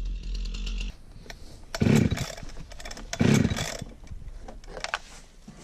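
A chainsaw idling briefly, then two sharp pulls on a chainsaw's starter cord about a second and a half apart, each a short loud whirring rasp, without the engine settling into a run.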